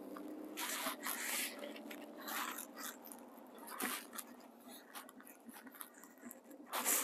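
Handling noise: clothing fabric rustling and rubbing against the phone's microphone in short crackly bursts, the loudest near the end, over a faint steady hum from the moving car's cabin.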